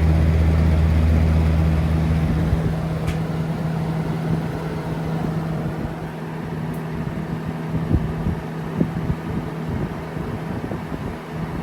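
Lasko 3733 20-inch box fan running loudly with motor hum and a rush of air; about two and a half seconds in, the deep motor hum cuts out and the sound slowly eases as the blades spin down, with a few light knocks later on. The fan is uncleaned and unoiled, and its bearings are judged not bad.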